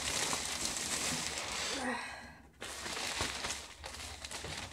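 Clear plastic packaging wrap crinkling and rustling as it is handled, with a short lull about two and a half seconds in.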